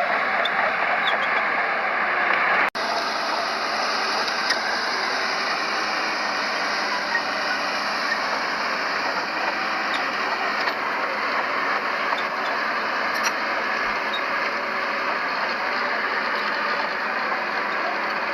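Diesel engines of heavy earthmoving machinery running steadily, with a sudden brief break in the sound a little under three seconds in.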